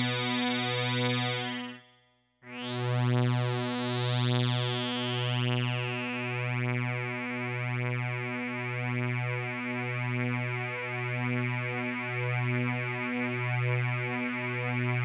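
Roland Sound Canvas SC-55 synth voice holding a low note with a slow pulsing about once a second. It cuts off about two seconds in. After half a second of silence it sounds again, bright at first and mellowing over the next few seconds as the TVF filter cutoff closes, then holds steady.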